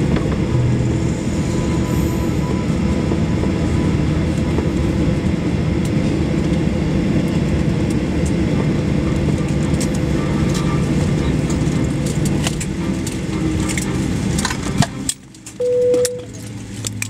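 Steady cabin rumble of a Boeing 737-800's engines at idle while the plane taxis on the ground, with scattered light clicks and rattles. About fifteen seconds in the noise drops suddenly and a short single tone sounds.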